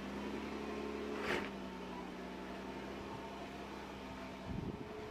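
Jeep Wrangler Rubicon's 3.6-litre V6 running at low revs as it crawls up a rock ledge: a steady hum. There is a brief sharp noise about a second in, and near the end the hum gives way to uneven low rumbling.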